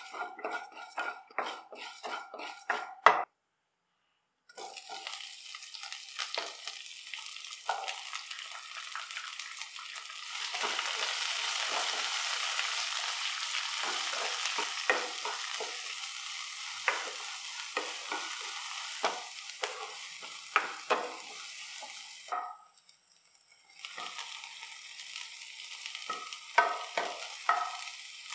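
A spatula scrapes around a nonstick frying pan in quick strokes, about three a second, stirring dal frying in oil. Then come steady sizzling and frying of sliced onion and garlic, louder from about ten seconds in, with scattered spatula strokes against the pan, broken by two brief gaps.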